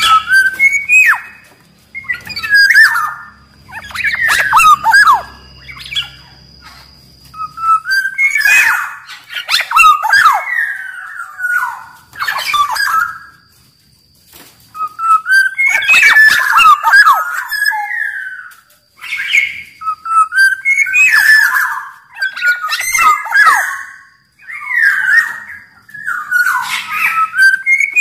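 Black-naped oriole (kepodang) singing vigorously: short, loud phrases of gliding whistled and scratchy notes, repeated in bursts every second or two.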